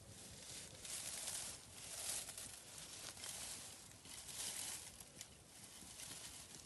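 Leafy branches and vines rustling and crinkling as they are handled and pressed into place, in repeated swishes about one a second.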